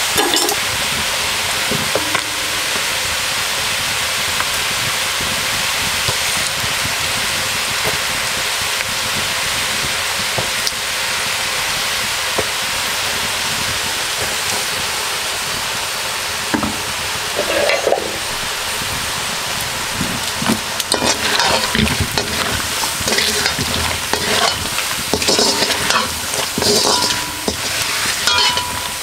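Chicken pieces sizzling in hot oil in a wok, a steady hiss. From about two-thirds of the way in, a metal spoon scrapes and clatters against the wok as the meat is stirred together with added spices.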